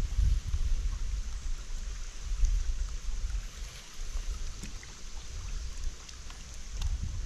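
Wind rumbling on the microphone over water lapping against a small fishing boat's hull, with a few faint clicks.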